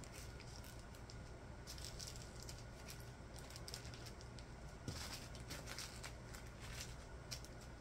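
Small plastic zip-lock bags of diamond painting drills crinkling and rustling faintly as they are picked up and set down, the drills shifting inside. One slightly louder tap about five seconds in as a bag meets the table.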